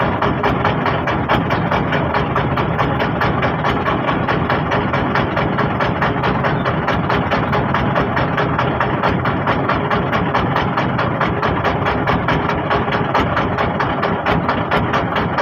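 Boat engine running steadily with a rapid, even beat.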